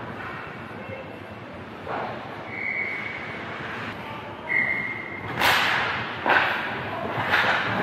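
A referee's whistle blown twice, each blast a short steady high tone under a second long. Then three loud, sharp hits ring out on the rink, about a second apart.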